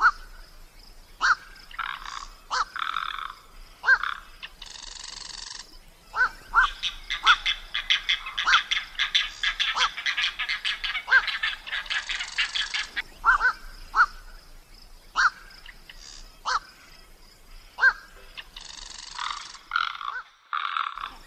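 Animal calls: repeated short, sharp calls, with a rapid rattling run of calls through the middle and a couple of brief rasping bursts.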